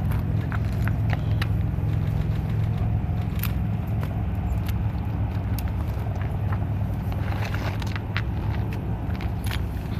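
Steady low rumble of outdoor background noise, with a few faint scattered clicks and ticks; no gun is fired.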